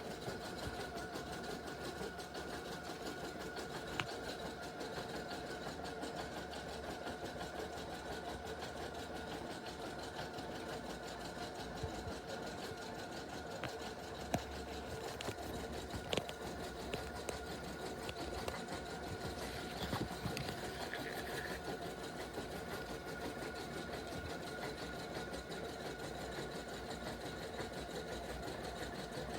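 Embroidery machine stitching: a steady motor hum with occasional sharp clicks.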